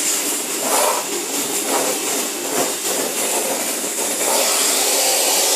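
Vacuum cleaner running steadily, a rushing air noise with a high motor whine; it gets louder a little past four seconds in.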